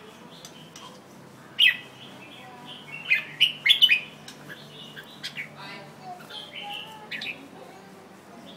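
Red-whiskered bulbul singing short, loud, chirpy phrases a second or two apart, with quieter chirps in between.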